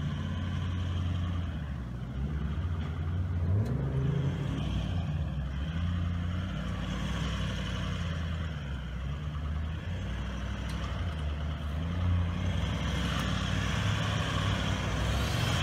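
A four-wheel drive's engine working at low speed as the vehicle crawls through deep ruts, its revs rising and falling with the throttle.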